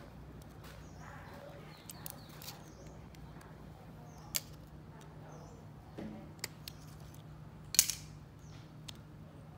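Small sharp clicks and taps as a wristwatch is handled, the loudest about eight seconds in, over a steady low hum and faint bird chirps.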